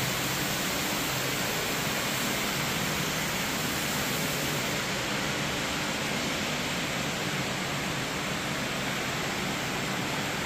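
Hot spring water pouring steadily into an onsen bath: an even, unbroken rushing noise.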